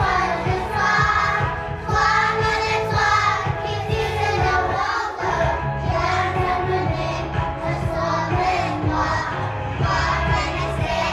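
A group of young children singing together over accompanying music with a steady beat.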